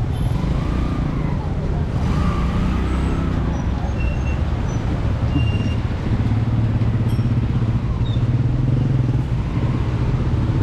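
Street traffic: a motor vehicle engine running with a steady low hum, heavier from about six seconds in, with faint voices in the background.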